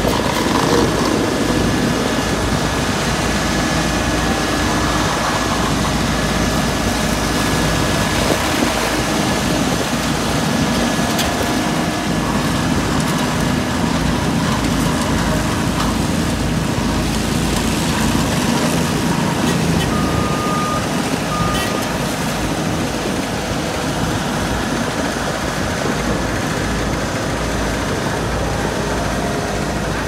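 Heavy diesel engines of an asphalt paver and road roller running steadily during asphalt paving. Two short high beeps are heard about twenty seconds in.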